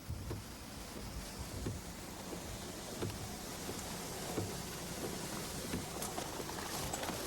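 Steady rushing rain and wind noise on a camcorder microphone, with scattered low knocks and thumps.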